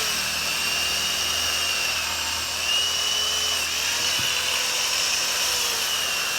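Black & Decker Alligator electric chainsaw lopper running with a steady high whine, cutting through a branch. Its pitch sags a little and recovers a few times as the chain bites into the wood.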